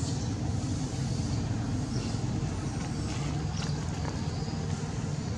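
A motor vehicle engine running steadily: a low, even rumble.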